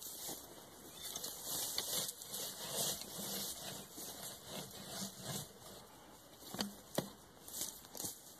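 Wooden beehive being handled and worked: wood rubbing and scraping with rustling, and two sharp knocks close together near the end.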